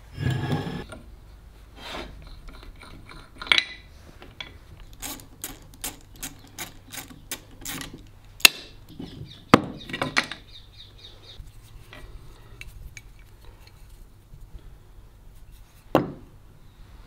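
A short hiss of an aerosol oil spray aimed through a straw at the frog screws of a Stanley Bedrock No. 608 plane. Then comes a run of light metallic clicks and taps, with a few sharper clicks, as a screwdriver works the frog screws loose. A single knock follows near the end.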